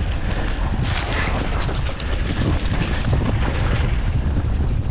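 Wind buffeting a helmet-mounted camera microphone in a continuous low rumble, mixed with scattered knocks and rattles, as from a mountain bike on a dirt trail.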